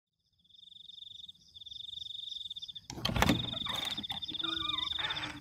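Crickets chirping in a steady, pulsing high trill from about half a second in. About three seconds in comes a loud thump, followed by fainter creaking and scraping.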